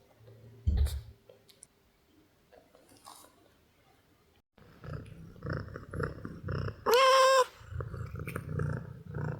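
Kittens: a soft thump about a second in, then, after a quiet spell, a run of soft rhythmic chewing-like mouth and body noises. One loud, level, squeaky kitten cry comes about seven seconds in.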